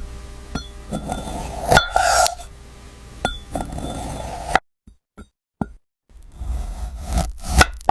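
Knife cutting fruit: crisp crunching as the blade goes through, with sharp taps and clicks of the knife striking the surface below. The sound stops dead for about a second and a half in the middle, then the cutting resumes.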